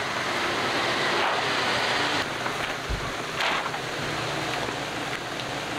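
Handfuls of freshly made yellow egg noodles being lifted, tossed and dropped on a metal table: a steady rustling hiss with a few soft drops.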